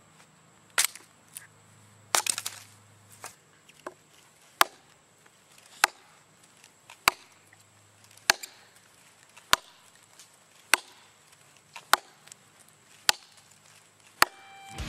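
Hatchet chopping into wood: a dozen or so sharp blows, one about every second and a quarter, with a quick flurry of strikes about two seconds in.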